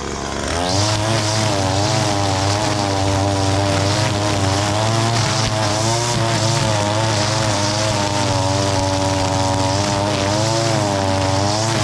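Echo SRM-225 two-stroke gas string trimmer revving back up within the first second, then running at high speed while cutting thick, overgrown grass. Its engine pitch wavers up and down as the spinning line loads and unloads in the grass.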